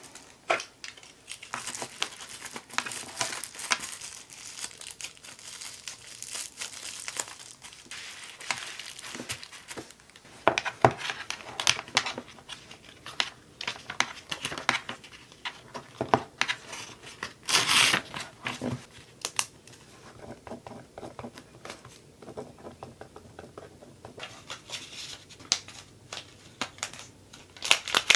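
Bubble wrap and clear plastic packaging crinkling and rustling under hands as small items are wrapped, with irregular light clicks and a few louder crackles.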